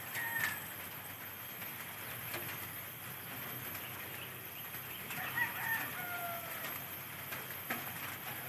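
A rooster crowing once, a long call that falls in pitch about five seconds in, over a steady outdoor background with a few short bird chirps near the start.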